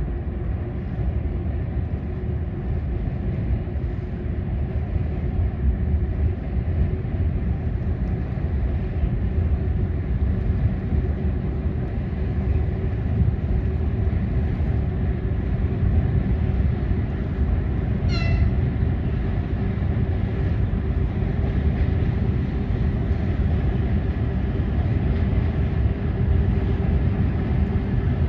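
Freight train hauled by a VL10K electric locomotive rumbling steadily across a steel truss railway bridge, with a constant drone over the low rumble. A short high squeal rings out about two-thirds of the way through.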